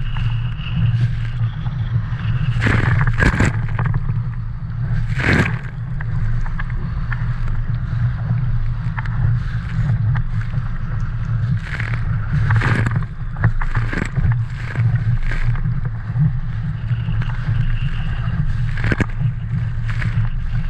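Wind rumbling on the microphone of a small sailing dinghy under way, with water sloshing and splashing against the hull and several sharper splashes.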